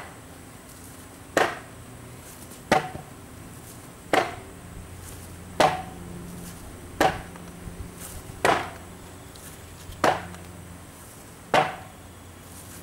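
A basket-hilted sword striking a padded pel in a steady series of about eight blows, one every second and a half. Each is a sharp thud as the blade lands on the padding, with the sword swung round behind the head between strikes in an arc transition.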